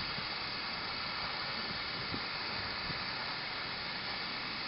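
Steady hissing rush of the heat tool shrinking adhesive-lined heat-shrink tubing over a soldered 2/0 cable ring terminal.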